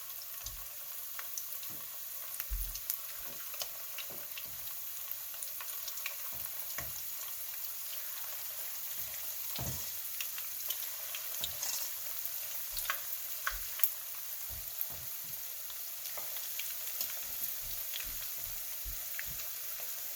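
Batter-coated chicken pieces frying in hot oil in a skillet: a steady sizzle with many small crackles, and occasional light knocks.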